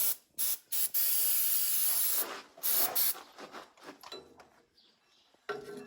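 Aerosol can of penetrating oil spraying onto a seized combine countershaft sheave to free it. A few short hissing bursts are followed by a long burst of over a second and another short one, and the spraying stops about three seconds in.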